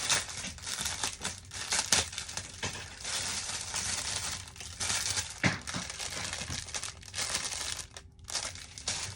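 Packaging crinkling and crumpling as it is handled and pulled at to find its opening, a continuous rustle with many sharp crackles that pauses briefly near the end.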